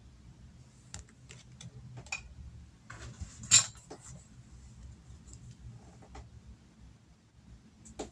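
Oracle cards being handled and tapped on a table: scattered light clicks, with one sharper tap about three and a half seconds in.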